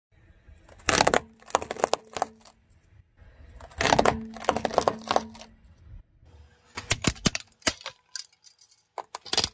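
A car tyre rolling over and crushing plastic toys, including a plastic rainbow spring: bursts of crackling, snapping plastic about a second in, around four seconds in (the loudest), around seven seconds in and again near the end.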